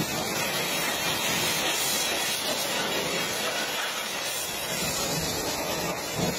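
High-pressure washer jet spraying water against a truck cab's side panels and window, a steady hiss.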